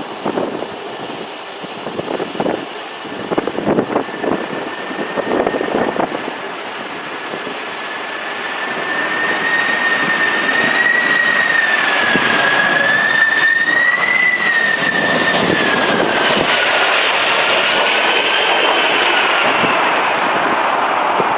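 Jet airliner's engines whining as the plane comes in to land, growing louder from about eight seconds in, with a high whine that wavers up and down in pitch. Gusty wind buffets the microphone in the first few seconds.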